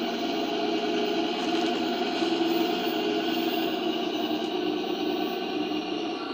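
Simulated diesel engine sound from the onboard sound module of an RC O&K L25 wheel loader model, running steadily through its small speaker while the model drives over a step.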